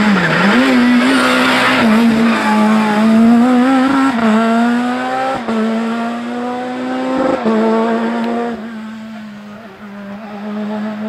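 Rally car accelerating hard through several upshifts, the engine note climbing and dropping back at each gear change. Tyres squeal during the first few seconds, and the car fades as it pulls away near the end.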